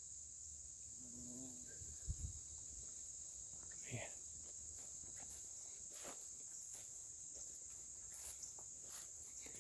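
Faint, steady high-pitched chorus of insects such as crickets, with a soft low thump about two seconds in.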